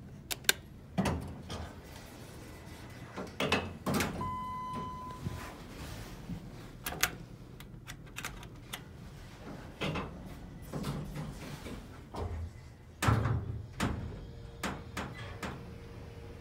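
Dover passenger elevator in use: button clicks, a single electronic tone lasting about a second about four seconds in, and the sliding doors opening and closing with a run of knocks and thumps. Near the end a steady low hum sets in as the car starts to travel.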